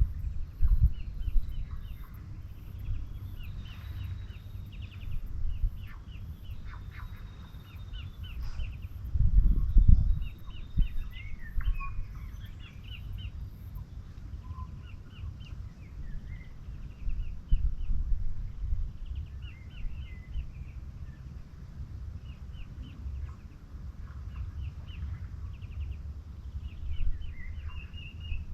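Small birds chirping and trilling in short, scattered phrases, over a low buffeting rumble on the microphone that swells loudest about nine seconds in.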